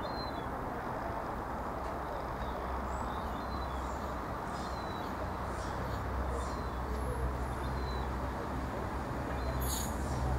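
Irish Rail 22000 class diesel multiple unit approaching, its underfloor diesel engines and wheels making a steady low rumble that grows a little louder in the second half. Birds chirp over it.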